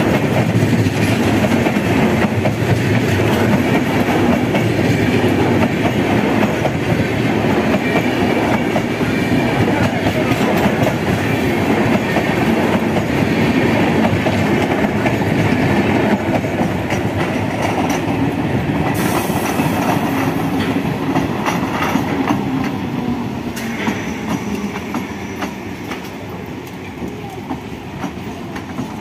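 Passenger express of LHB and ICF coaches passing close at speed: a steady rumble of wheels on rails with rapid clicking over the rail joints, growing quieter over the last several seconds.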